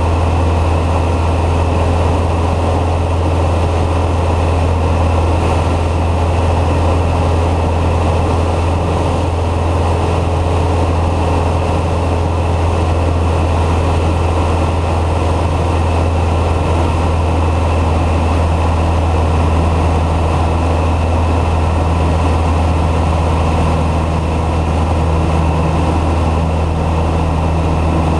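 A Citabria 7ECA light plane's 118 hp four-cylinder engine and propeller running at a steady cruise in low-level flight, a constant loud drone that holds even throughout.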